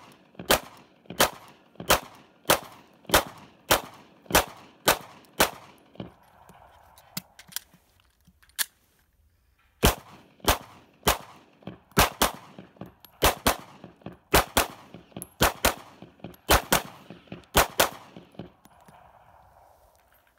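Semi-automatic 9mm pistol fired in steady strings, about one shot every half second or so, each shot ringing briefly. About ten shots, a pause broken by a single shot, then a second string of about fifteen.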